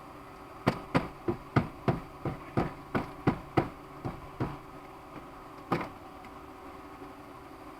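A hammer tapping sharply about a dozen times, roughly three blows a second, then once more a second later. These are taps on a Yamaha Rhino's starter to make it crank after a no-start.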